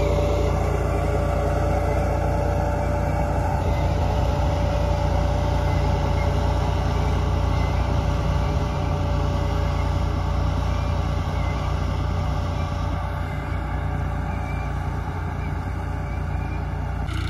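New Holland 3630 tractor's three-cylinder diesel engine running steadily while pulling a pneumatic maize planter, a constant low drone with a steady tone above it. It fades slightly in the last few seconds as the rig moves away.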